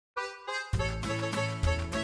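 Upbeat intro music. It opens with two single pitched notes, and about two-thirds of a second in a full band joins with bass and a steady beat.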